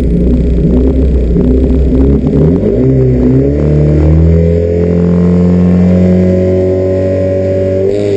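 Alfa Romeo Alfetta GTV 2000's twin-cam four-cylinder engine with Spica mechanical fuel injection, heard from inside the cabin. It revs unevenly for about three seconds, then the revs rise and are held steady and high while the car stays stationary, ready to launch at a race start.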